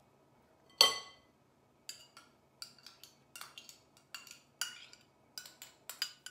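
Kitchen utensils clinking against glass bowls: one loud, ringing clink about a second in, then a run of lighter, irregular taps.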